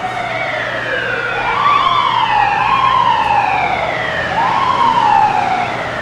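Emergency vehicle siren wailing, its pitch sweeping up and gliding slowly down about three times, over a low steady city hum.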